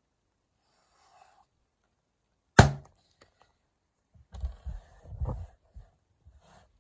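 A clear latex confetti balloon popped with a pin: one sharp, loud bang about two and a half seconds in. It is followed a second and a half later by a few low bumps and rustles.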